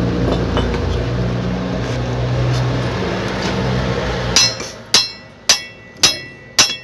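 Hammer striking the steel yoke of a Mitsubishi Canter propeller shaft's universal joint: about five sharp metallic blows a little over half a second apart, starting about four seconds in, driving the bearing caps out of the worn cross joint. Before the blows, a steady low mechanical hum.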